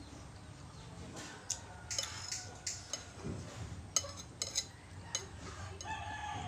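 Metal spoon clinking and scraping against a ceramic plate of instant noodle soup, a string of sharp clinks through the middle. Near the end a chicken clucks in the background.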